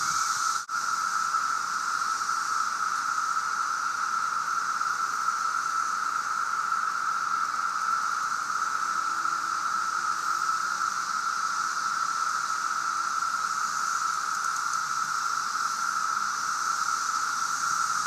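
Chorus of thousands of periodical cicadas (the 2013 Brood II emergence) singing together: a steady, monotonous drone that sounds like machinery.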